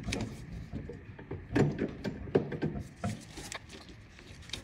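Irregular knocks, clicks and clunks of hands working a hydraulic hose quick-coupler onto a tractor loader's fitting, pulling back the collar to push it in.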